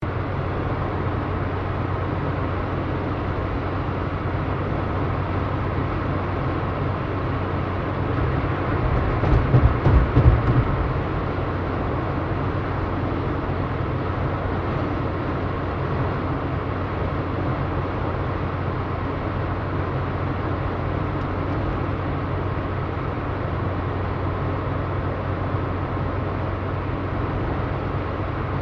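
Car driving at a steady speed: a constant low engine and road rumble with hiss above it. A short cluster of louder low thumps comes about nine seconds in.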